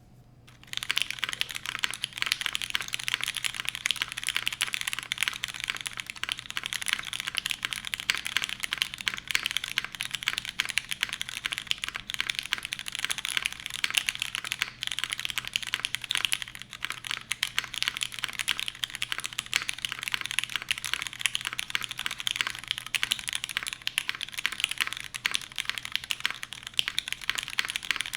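Steady, dense typing on a custom Jihyo TKL mechanical keyboard: lubed Cherry MX Red linear switches with 57 g springs in an aluminium top-mount case, under GMK doubleshot ABS keycaps. The typing starts just under a second in.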